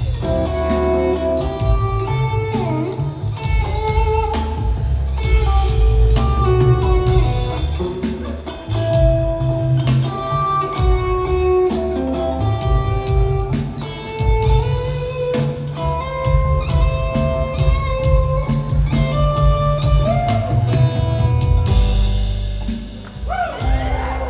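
Live rock trio playing an instrumental passage: electric guitar lines over bass and drum kit, recorded on a phone.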